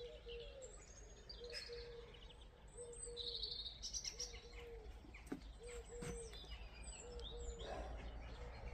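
Garden birds chirping and trilling faintly, several short calls overlapping, busiest a few seconds in. Under them a short low note repeats about twice a second.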